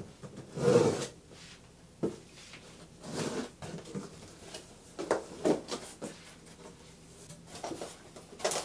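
Cardboard box being opened: a utility knife slitting the tape across the top, the cardboard flaps pulled open, then styrofoam and papers inside shuffled. Irregular short scraping and rustling noises, with one sharp click about two seconds in.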